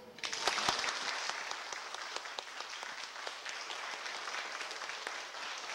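Audience applauding: clapping begins suddenly just after the start, with a few loud claps close by, then goes on steadily and eases slightly near the end.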